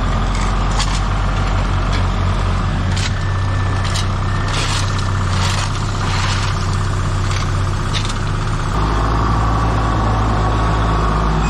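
Vehicle engine running steadily, with scattered light clicks and rattles; its low note shifts about nine seconds in.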